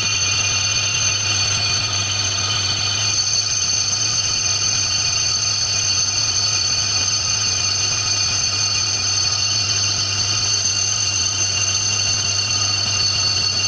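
Lathe running steadily while a cast-iron brake disc is turned, with a low motor hum and several high, steady ringing tones from the tool cutting the spinning disc.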